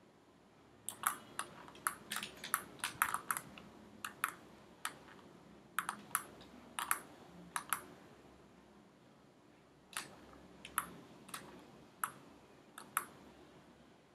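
Sharp clicks of a computer mouse and keyboard in irregular clusters, with a quick run of them about a second in and scattered clicks after.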